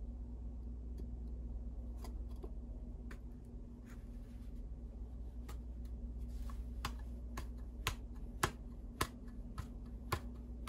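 Scattered light clicks and taps from handling a steel axe head on its wooden handle, sparse at first and coming more often in the second half, over a steady low hum.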